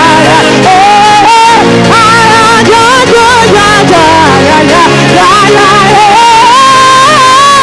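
Live gospel worship music: a lead voice sings a wavering, ornamented melody over sustained instrumental chords, holding one long note near the end.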